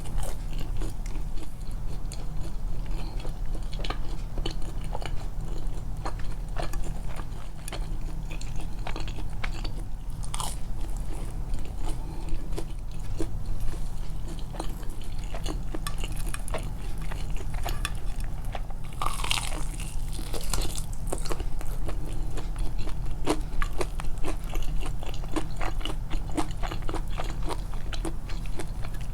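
Close-miked biting and chewing of fried chicken: many short wet clicks and a few light crunches of the coating, over a steady low hum. About two-thirds of the way through there is a brief, louder rush of noise.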